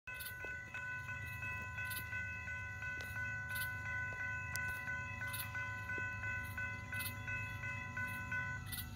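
Florida East Coast Railway train's multi-tone air horn sounding from afar as the train approaches, a held chord with short breaks that stops just before the end. Behind it are insects chirping in a steady pulse about twice a second and a low rumble.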